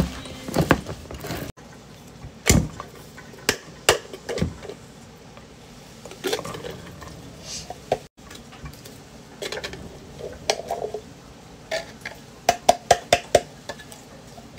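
Kitchen handling sounds: a hand-held can opener working around a tin can, then the opened can being emptied into an enamel pot, with sharp metal-on-metal clicks and knocks and a quick run of knocks near the end.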